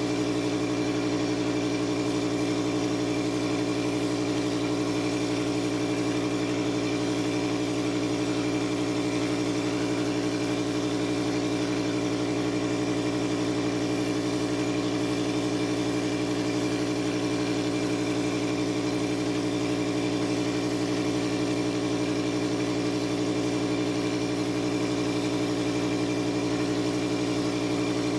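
A motor-driven machine running steadily at constant speed, an even droning hum that does not change.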